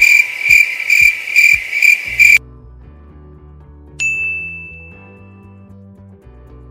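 Cricket-chirping sound effect, a high pulsing chirp a few times a second, which stops suddenly about two and a half seconds in. Low repeating synth notes follow, with a single bright ding about four seconds in that rings out and fades.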